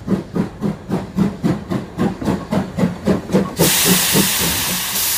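Cartoon steam-train sound effect: rhythmic chuffing, about four chuffs a second, changing a little after halfway into a steady hiss of steam as the train comes to a stop.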